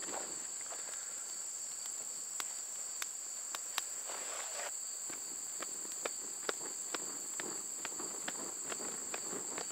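Small stick-and-tinder fire crackling, with scattered sharp pops as the tinder bundle catches. A wide-brim hat fanning air in at the base makes a soft whoosh about four seconds in. A steady high insect drone runs underneath.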